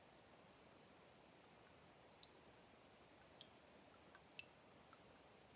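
Near silence: room tone with about six faint, sharp clicks scattered irregularly through it.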